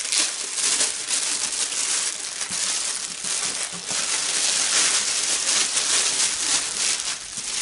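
Thin clear plastic bag crinkling and crackling continuously as hands pull it open and work the contents out; the crinkling is louder than the talk around it.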